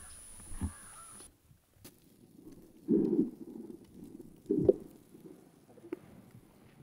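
Oil-soaked cardboard catching fire under charcoal in a barbecue grill: the flames flare up with a low rumble about three seconds in and again with a sharp crackle a second and a half later, and faint crackles come between.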